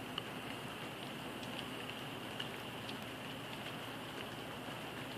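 Light rain falling outdoors: a steady hiss with scattered drop ticks at irregular intervals.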